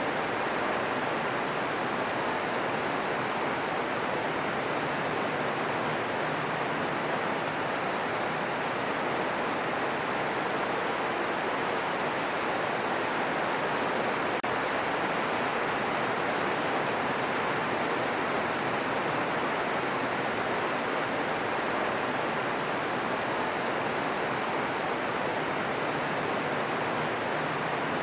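Green noise: a steady, even rush of noise weighted toward the middle pitches. It has no changes, drips or thunder claps.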